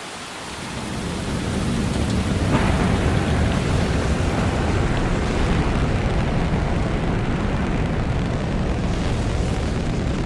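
Long March 5 rocket lifting off, heard from a distance as a deep rumble that swells over the first two seconds and then holds steady, with rain hiss mixed in.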